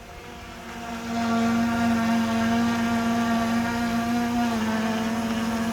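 Small DJI Mini quadcopter drone's propellers whining as it is brought down out of the air. The hum grows louder over the first second as the drone comes closer, then holds a steady pitch that drops slightly about four and a half seconds in.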